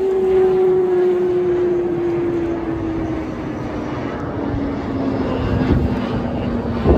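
Military jet fighter passing overhead, its jet engine noise steady with a pitch that slides slowly downward as it goes by.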